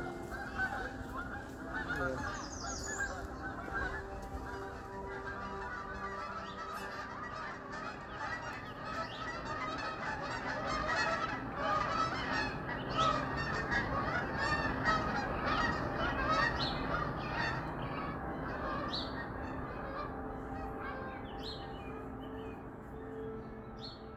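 A flock of geese honking, many overlapping calls, thickest about midway and thinning near the end, over a low sustained musical drone.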